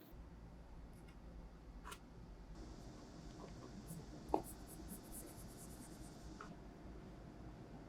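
Faint kitchen handling sounds: scattered light taps and clicks, a soft steady hiss in the middle, and one sharper knock a little past four seconds in.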